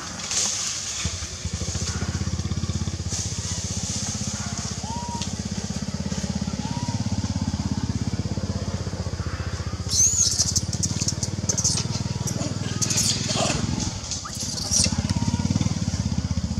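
A motorcycle engine running steadily at low revs, a low, fast-pulsing drone. Short high-pitched calls break in about ten seconds in and again a few seconds later.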